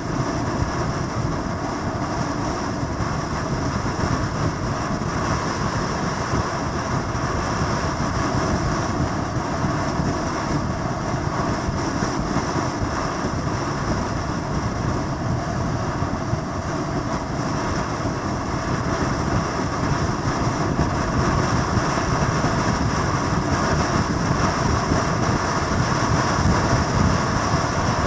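Steady drone of motorcycle engines running continuously, growing slightly louder near the end.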